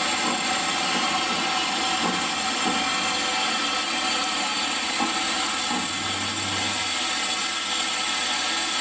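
Steady hissing from 2-8-0 Consolidation steam locomotive #610 as it stands in steam on a turning turntable, with a brief low hum about six seconds in.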